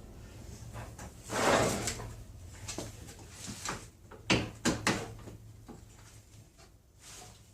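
Styrofoam packing blocks being worked loose from a miter saw's sliding mechanism: a scrape about a second and a half in, then a few sharp knocks between four and five seconds in.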